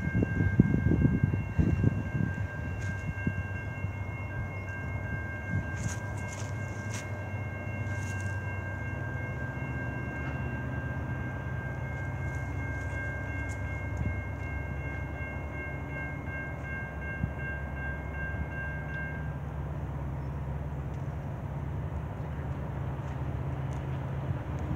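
Diesel locomotives of an approaching freight train, still out of sight, running with a steady low engine drone. Over it a steady high ringing tone holds and stops about 19 seconds in.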